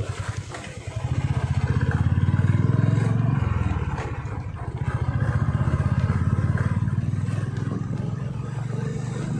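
Motorcycle engine pulling away and speeding up, its note dropping abruptly about three and a half seconds in as it shifts gear, then running steadily.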